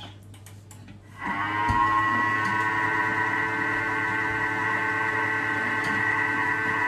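A few light clicks, then about a second in a Thermomix food processor's motor starts and runs steadily at speed 4, its blade stirring cake batter. It makes a steady whine of several even tones that holds to the end.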